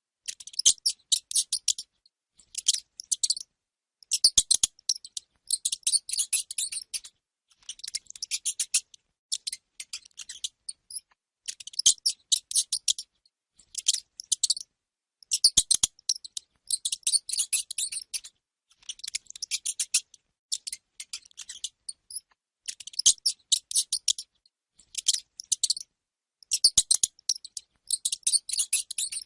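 Hamster squeaking: rapid, high-pitched chirps in bursts of about a second, repeating every second or two.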